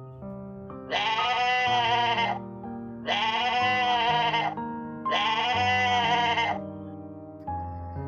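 Goat bleating three times, each call lasting over a second with a wavering pitch, over background music with sustained low notes.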